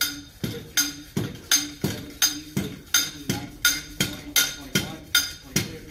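Manual soil compaction rammer with a 12-inch drop being worked up and down in its guide sleeve on soil in a compaction mold: an even rhythm of sharp metallic knocks, about three a second.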